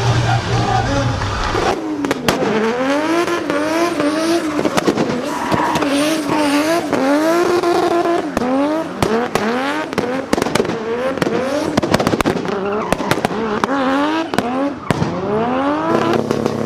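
Turbocharged drift car engine revving hard up and down again and again, with sharp bangs and pops typical of anti-lag, over squealing tyres. The revving starts about two seconds in.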